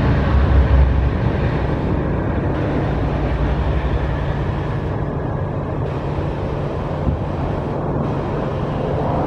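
Commuter train running, a steady low rumble with engine hum and rolling noise, slightly louder in the first second.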